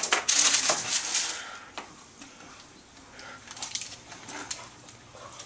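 Handling noise: objects clatter and scrape on a tabletop, loud with a sharp knock at the very start and through the first second, then fainter scattered clicks and knocks.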